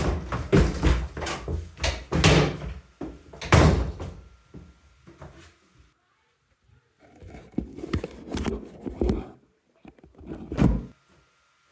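Heavy thuds and bangs in two bouts: a dense run of them through the first few seconds, then a pause, then more from about seven seconds in, ending with one loud bang near the end.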